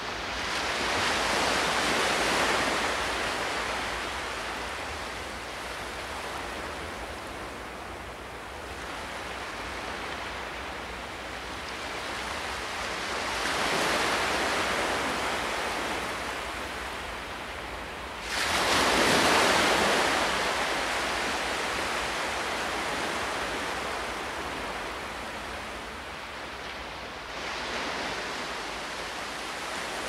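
Sea surf breaking and washing up a sandy beach in four surges, the loudest coming in suddenly about 18 seconds in, over a steady low rumble.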